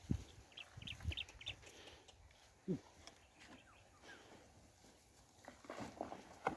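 Faint animal calls: a quick run of short high chirps, then a single low falling call, among scattered soft knocks and thumps.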